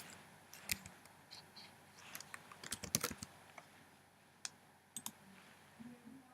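Faint, scattered computer key taps and clicks, a handful spread out, with a short cluster about three seconds in.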